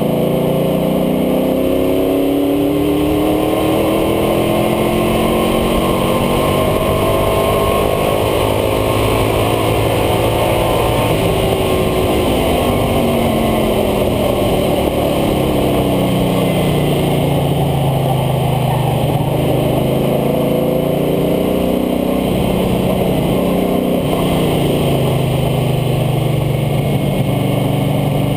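International Harvester Scout II engine driven hard, heard from low at the front of the truck over a steady rush of wind and tyre noise. Its pitch climbs in the first couple of seconds, falls away slowly, then rises and drops again several times, and runs lower and steadier near the end.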